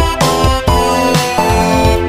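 Instrumental music: held electronic keyboard chords that change every half second or so over a steady beat.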